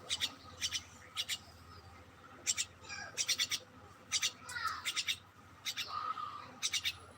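A small bird chirping: short, high chirps, singly and in quick runs of three or four, with a couple of lower sliding notes in between.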